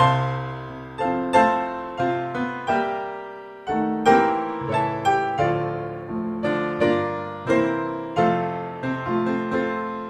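Solo piano music: slow chords and single notes, each struck and left to fade.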